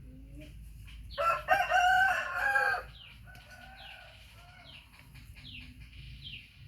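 A rooster crowing once, loud, starting about a second in and lasting nearly two seconds, trailing off into a fainter drawn-out note. Small birds chirp repeatedly in the background.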